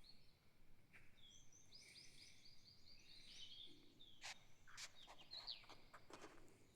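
Faint outdoor birdsong: a bird repeating a quick run of short high chirps, then a few sharper, quicker calls in the second half, over a very quiet background.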